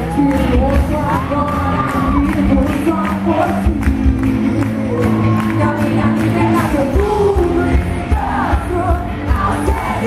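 Live worship band music through a hall PA: a woman singing into a microphone over amplified bass, keyboard and a steady drum beat, with the crowd singing along.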